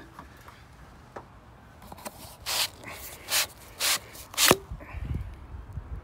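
Plastic plume-kit pipe being pulled and scraped out of a boiler flue terminal in a brick wall: four short scraping rasps, the last ending in a sharp knock, then a brief low rumble.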